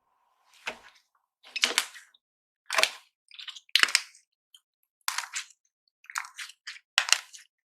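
Slime being squeezed and worked by hand, crackling and popping in short sharp bursts about once a second.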